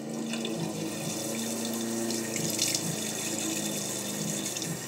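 Bathroom sink tap running steadily, with water scooped by hand to wet the face.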